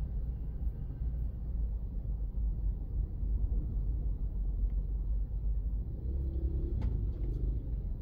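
Steady low rumble of a car driving, with a couple of faint clicks about seven seconds in.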